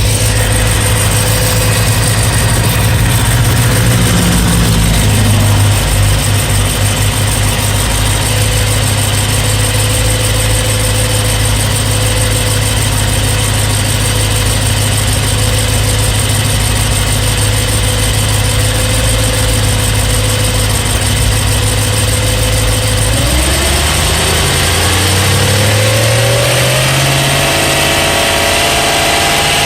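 BMW E92 M3's S65 4.0-litre V8 idling with the ticking noise it developed from cold, still present when warm. Near the end the engine speed rises and holds at a higher, steady speed.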